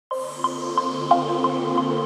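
Ambient, new-age style intro music: sustained held chords with a light repeating note about three times a second, starting with a bright shimmer.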